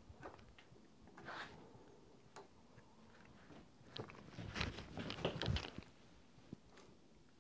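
Faint scraping and clicking of a plastic security camera and its ball-and-socket wall mount being handled and adjusted by hand, busiest from about four to six seconds in.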